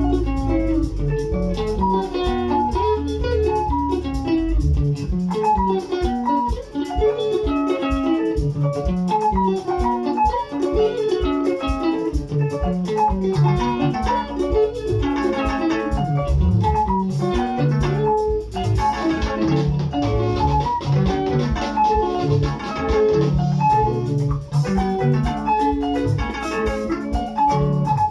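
Instrumental music at a studio sound check: quick plucked guitar lines over a bass line, with a steady drum beat coming in about four seconds in.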